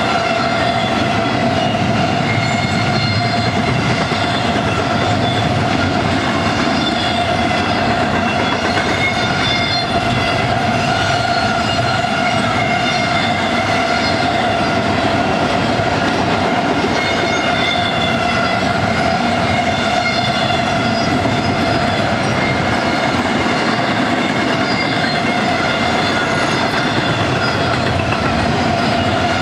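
Double-stack container train rolling past close by, its wheels and well cars rumbling on the rails, with a steady high ringing tone over the rumble.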